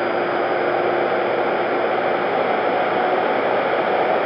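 Steady rush of airflow over the onboard camera of an electric RC warbird in flight. A faint electric motor and propeller tone runs under it, its lower part fading about halfway through.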